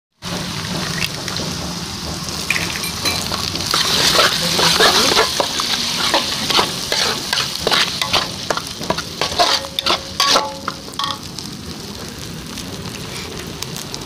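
An egg sizzling in hot oil in a wok while a metal spatula scrapes and clatters against the pan, scrambling it. The clattering stops about eleven seconds in and the sizzle goes on more quietly.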